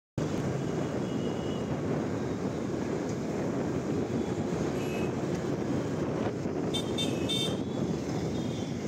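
Steady outdoor din like street traffic, with short high-pitched toots about a second in, near five seconds, and a few together around seven seconds.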